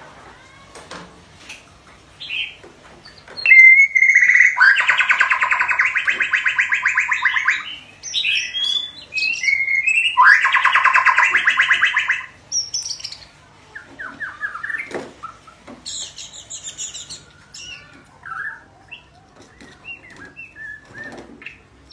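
A young white-rumped shama practising its song. Scattered short whistled and chirped notes are broken by two loud, rapid rattling phrases of a few seconds each, and a brief high trill comes later.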